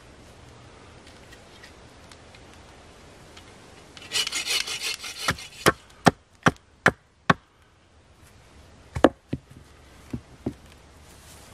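A blade working a point onto a green wooden stake against a log: about a second of scraping and rasping on wood, then six sharp chopping knocks about 0.4 s apart, and a few more strokes near the end.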